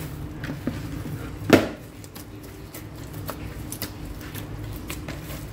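Hands kneading soft pizza dough in a plastic bowl: faint pressing and squishing with small knocks, and one louder knock about a second and a half in.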